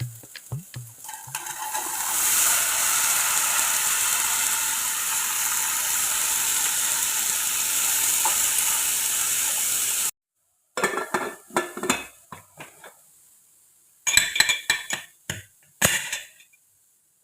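Food sizzling steadily in a hot frying pan for about eight seconds, cutting off suddenly. Then two runs of quick clinks and knocks, utensils against pots and dishes.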